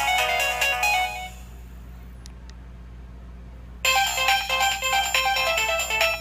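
Nokia 2310 mobile phone playing its built-in ringtones through its small speaker: one electronic melody fades out about a second in, a pause with two faint clicks follows, then another ringtone melody starts abruptly.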